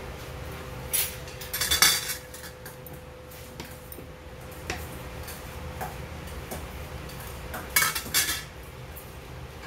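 Stainless steel chopsticks clinking and scraping against an emptied stainless steel bowl and side dishes, in a cluster of sharp clinks about a second in and another near the end, with single taps between, over a faint steady hum.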